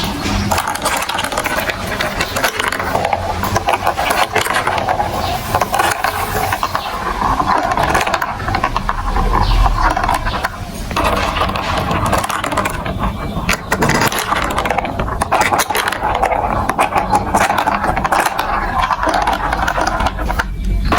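Marbles rolling and rattling through a plastic building-block marble run, a continuous stream of clicks and clatter as they run along the track and knock against the pieces.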